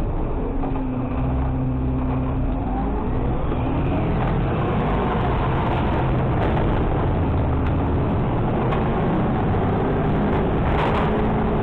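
Engine of a 2019 Mack LR600 refuse truck running as the truck drives, its pitch rising and falling with speed, heard from the hopper. There is a brief hiss near the end.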